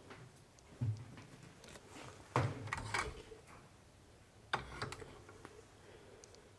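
Plastic clicks and rattles of an old push-button wall telephone's handset being lifted off its hook and handled. There is a cluster of clicks about two and a half seconds in and a single sharp click about four and a half seconds in.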